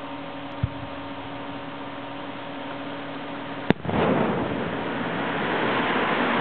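A single aerial firework shell: a faint low thump about half a second in, then about three seconds later a sharp bang as the shell bursts, followed by a long rolling rumble.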